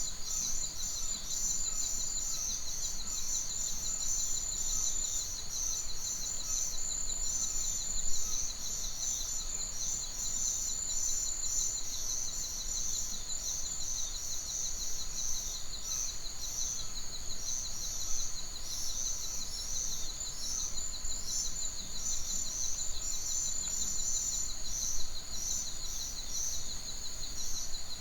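Outdoor chorus of small animals: a steady wall of high, rapidly repeating chirps, with fainter, lower calls scattered through it and a couple of brief louder sounds, one about eight seconds in and one near the end.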